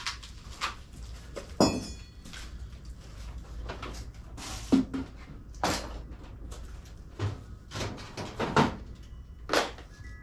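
Irregular clunks and knocks of metal parts and tools being handled, about a dozen of them, with a brief metallic ring a couple of seconds in.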